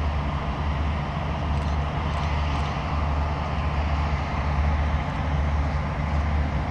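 Low, steady rumble of the diesel locomotives on an approaching train.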